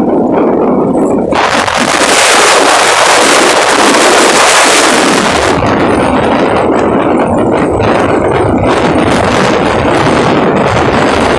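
Strong wind blowing over the microphone as a loud, uneven rush. A harsher gust comes in about a second in and lasts about four seconds, then eases back to a lower, gusty rumble.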